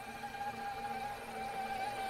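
Axial SCX6 Jeep JLU Wrangler RC crawler's electric motor and drivetrain whining at a steady pitch as the truck crawls along.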